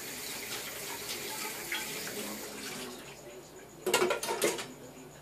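Kitchen sink tap running while dishes are washed, the water fading out about halfway. About four seconds in, a short clatter of dishes being handled and set down.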